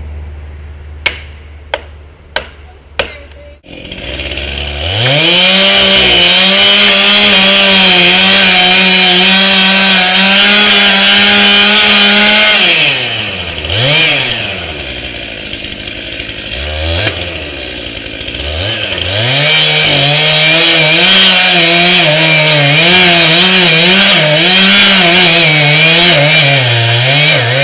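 Two-stroke chainsaw cutting an alder trunk, preceded by a few sharp clicks. The saw revs up to full throttle, drops back to idle with one quick blip about halfway through, then runs at full throttle again under load, its pitch wavering as the chain bites into the wood.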